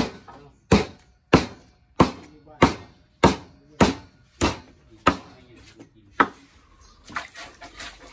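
Cleaver chopping frog meat on a thick wooden chopping block: about ten sharp, even chops roughly every 0.6 seconds, stopping about six seconds in, followed by lighter irregular knocks.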